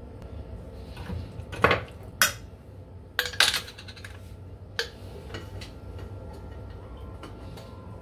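Metal spoon clinking against a glass sauce jar and a stainless-steel bowl as oyster sauce is spooned out: about five sharp clinks within the first five seconds, then only a low steady background.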